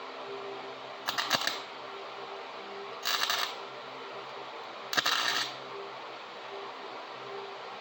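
Three short crackling bursts of a flux-core wire welder laying tack welds, each about half a second long and about two seconds apart, over a steady electrical hum.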